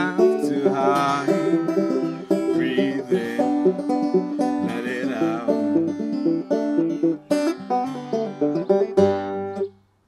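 Banjo and acoustic guitar playing a folk song together. The music ends on a final chord that cuts off shortly before the end.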